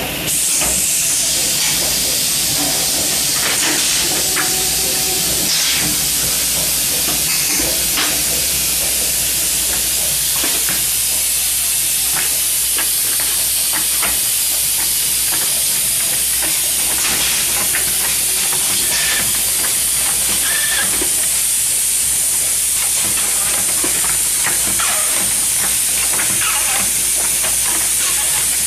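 Automatic soap filling and pump-capping machine running: a steady high hiss under a low hum, with frequent irregular clicks and clacks from the moving mechanism.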